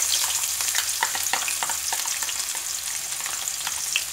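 Chopped onions sizzling and crackling in hot oil with cumin seeds in a kadai, just tipped in and stirred with a spoon. The sizzle is loudest as they go in and eases a little as they are stirred.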